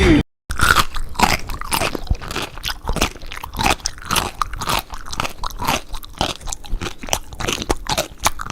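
Someone chewing crunchy food close to the microphone, a rapid irregular run of crunches after a brief cut to silence just at the start.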